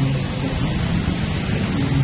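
Busy street traffic, mostly small motorbikes and cars passing, as a steady rushing noise with low engine hum, mixed with background music.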